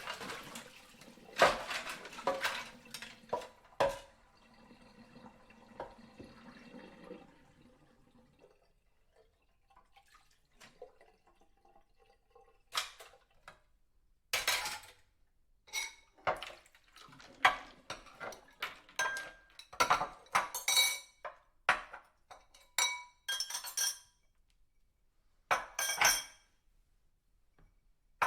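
Dishes being washed by hand: plates, glasses and cutlery clinking and clattering against each other at irregular intervals, some strikes ringing on. Water runs for a few seconds early on, and the clatter pauses briefly around a third of the way through.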